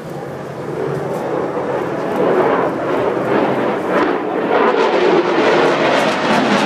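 Jet noise from a Sukhoi Su-35 fighter's twin turbofan engines as it flies overhead, growing steadily louder from about a second in.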